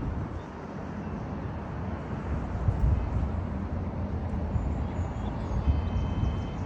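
Outdoor rumble, low and uneven in gusts, with a faint thin high tone near the end.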